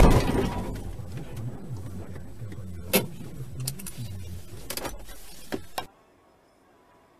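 Car collision: one sudden loud bang of impact that fades over about a second, over the low steady hum of the car's engine. A few sharp knocks follow before the sound drops away to faint about six seconds in.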